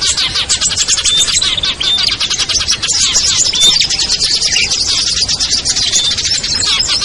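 Dense, busy chorus of many small songbirds chirping and twittering over one another without a break, with short clear whistled notes standing out now and then. It is a layered bird-lure recording of small songbirds such as bar-winged prinias, bulbuls and ashy tailorbirds, made to call down small wild birds.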